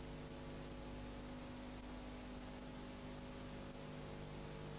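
Faint steady electrical hum with a few fixed low tones over an even hiss: the background noise of an old videotape recording with no programme sound.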